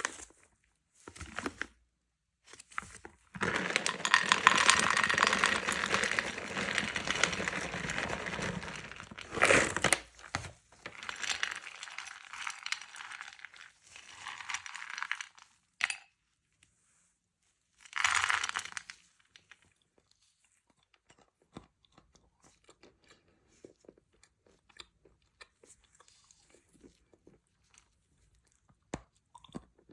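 Large dense granules of Iranian kaolin white clay handled and eaten close to the microphone. Bursts of dense crackling come through the first two-thirds, then only sparse faint clicks of quiet chewing, the clay softening in the mouth without squeaking on the teeth.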